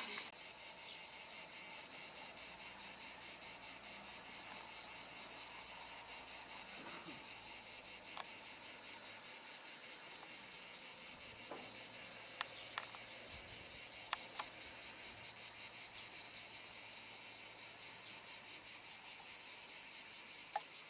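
Insects chirring in a steady, fast-pulsing high-pitched chorus.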